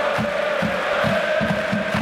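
A large block of football supporters singing a chant together, holding a long note, over a steady low beat of about four to five strokes a second.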